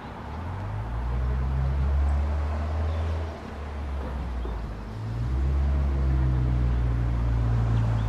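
A car engine running close by at low speed, a low rumble that swells over the first second, drops back briefly about three seconds in, and comes back stronger about five seconds in.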